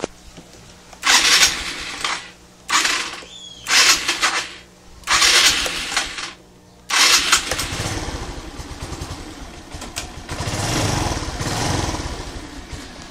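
Suzuki Skydrive 125 scooter's single-cylinder four-stroke engine being cranked in four short bursts. It catches on a fifth try about seven seconds in and runs, swelling louder twice with a bit of throttle near the end.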